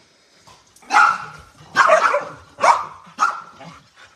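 Dog barking: four loud, sharp barks, the first about a second in and the rest following at intervals of under a second.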